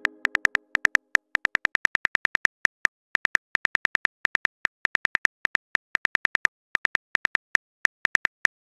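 iPhone keyboard key-click sound effect, a rapid, slightly uneven run of short ticks, about six a second, as a message is typed letter by letter.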